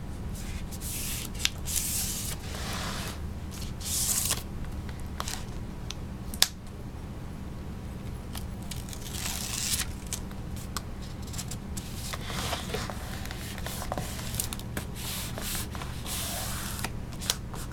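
Fingers rubbing and pressing a clear book repair tape strip into the hinge of a book, with paper and cover rustling in irregular bursts and a sharp tap about six seconds in.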